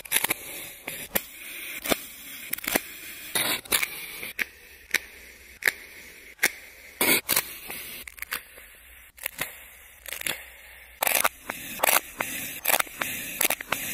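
Kinetic sand being scooped with a spoon and sliced with a knife: irregular crisp crackling and scraping clicks as the packed sand breaks apart. The clicks are sparser in the middle and come thick and fast near the end.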